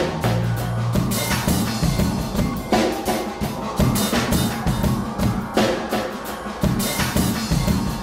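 Background music with a driving drum-kit beat and heavy bass.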